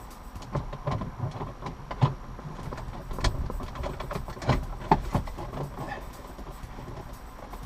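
Irregular clicks, knocks and rustling of hands working a cable through the plastic trim behind a car's dashboard, with a few sharper knocks in the middle.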